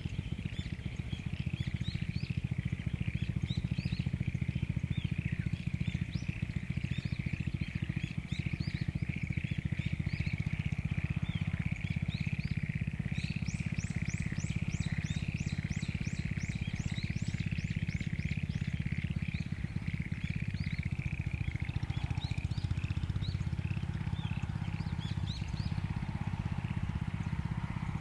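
A dense frog chorus from flooded rice paddies: many overlapping short croaking calls keep going without a break. The recordist takes the frogs mostly for black-spotted pond frogs. About halfway through, a fast run of high rising notes sounds over the chorus for several seconds.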